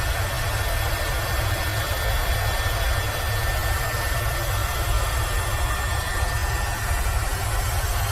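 Airbus H130 (EcoStar) helicopter in flight: the main rotor's steady low throb under the turbine's rushing noise, with a thin high whine held steady.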